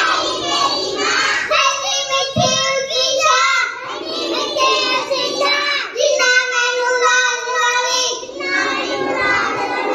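A young boy singing in a high child's voice, with held notes that keep on without a break.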